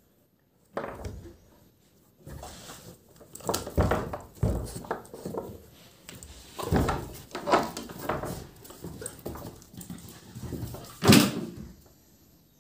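Labrador puppy playing excitedly, making short, irregular dog noises amid knocks and scrapes against a door, with one sharp bang about eleven seconds in.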